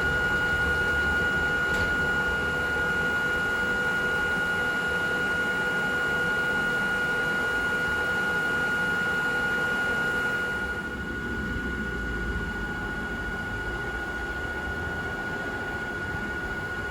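Old Hakone Tozan Railway electric railcars standing with their on-board equipment running: a steady whine of unchanging pitch over a hiss. The sound gets a little quieter and duller about eleven seconds in.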